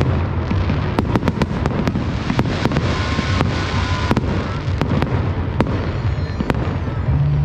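Fireworks bursting: a rapid, irregular string of sharp bangs and crackles.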